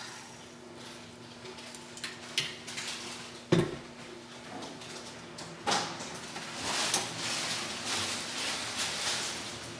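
Kitchen handling sounds: scattered knocks and clatter of dishes and utensils, with one sharp knock about three and a half seconds in and lighter clattering in the second half.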